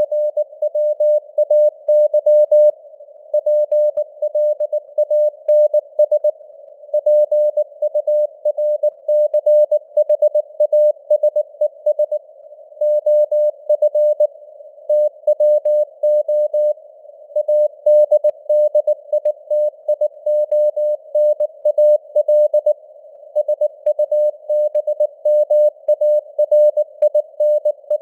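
Morse code (CW) sent at 19 words per minute as a single-pitched beep keyed on and off in dots and dashes, with short pauses between words. A hiss of simulated radio noise sits around the tone, and the signal strength fades up and down (QSB).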